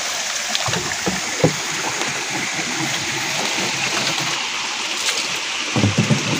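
Spring water running steadily from a wooden trough spout and splashing onto rock and into a plastic bottle held under it, with a few brief splashes and knocks near the start and near the end.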